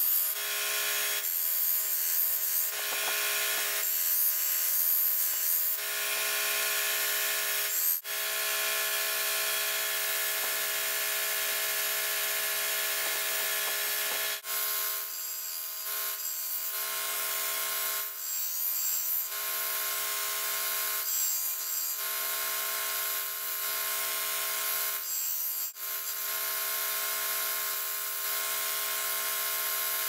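Small vertical belt sander running with a steady motor hum while the steel nail file of a multitool is ground against the belt, shaping it into an awl. The grinding hiss stops and starts as the steel is pressed on and lifted off in repeated passes, with several short pauses.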